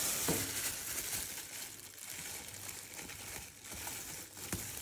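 Thin plastic bag crinkling as it is pulled and wrapped over a plastic bowl of food, with a few small clicks.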